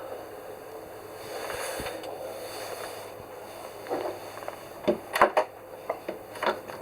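Knocks and clicks of someone moving through a yacht's cramped wooden cabin and handling its fittings, after a soft rustling. A quick run of sharp knocks comes about four seconds in, the loudest pair near five seconds.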